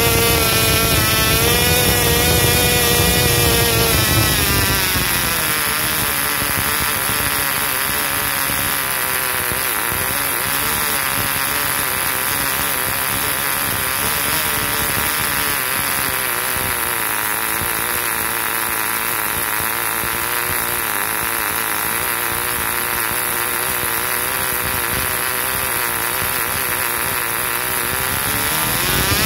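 A small two-stroke Cox model glow engine spinning a two-blade propeller runs at full throttle, near 14,000 rpm. About four seconds in it is throttled down to a low, slightly wavering idle of around 7,000 to 8,000 rpm. Near the end it climbs back towards full speed.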